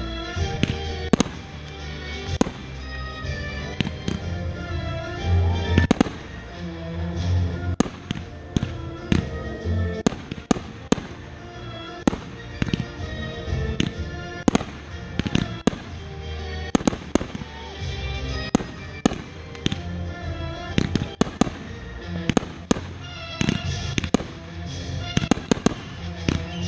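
Aerial fireworks going off in quick succession: many sharp bangs and crackles, several a second at times, over loud music with a heavy bass.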